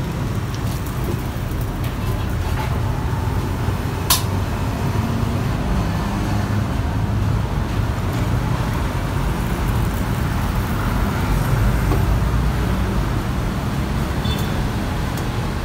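Steady rumble of road traffic passing a street corner, with a single sharp click about four seconds in.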